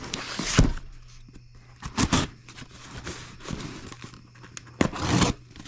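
Packing tape being torn from a cardboard shipping box and the flaps pulled open: three short bursts of tearing and scraping cardboard, with rustling in between.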